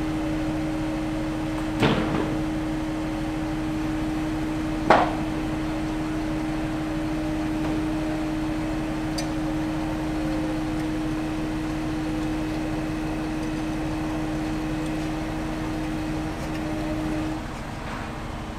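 A machine running with a steady hum that cuts off near the end, with two sharp metal clanks about three seconds apart, the second louder and ringing briefly.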